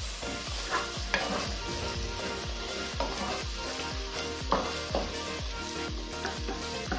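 Sliced onions, green chillies and curry leaves sizzling in oil with chilli paste and spices, stirred and scraped round the pot with a wooden spatula in several strokes.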